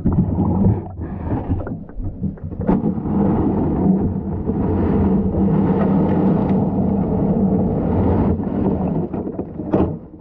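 Steady, muffled rumble of creek water moving around an action camera submerged inside a wire-mesh minnow trap, with a couple of sharp knocks.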